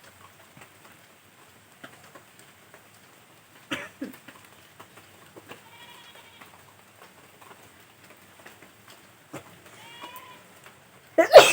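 A woman sneezing loudly once near the end, a sudden voiced burst after a long quiet stretch.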